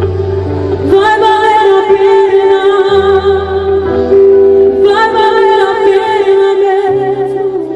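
Gospel song: singing over sustained instrumental backing, the bass moving to a new note every second or two, and the music beginning to fade out near the end.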